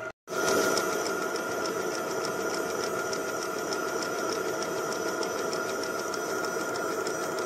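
Tank engine idle sound effect, a steady diesel-like idle with a fast even knock and a ringing tone. It drops out for a split second at the very start.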